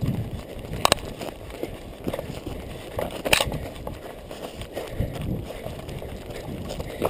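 A runner's footfalls and the rustle of brushing through heather and low forest undergrowth, heard close up from a chest-mounted camera, as irregular low thuds. Two sharp cracks stand out, about one second and three and a half seconds in.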